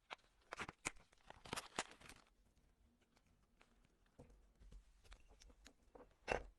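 Faint taps, clicks and short scrapes of small tools and parts being handled while a wristwatch is worked on, with a louder knock near the end.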